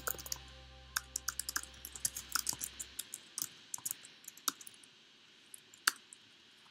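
Typing on a computer keyboard: quick, irregular keystroke clicks with short pauses between bursts.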